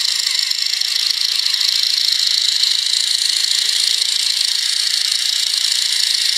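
Small DC motor driving a 3D-printed plastic gear train, running at speed with a steady high-pitched whir.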